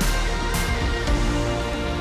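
Background music: a song with a steady beat and cymbal crashes at the start and just after the end.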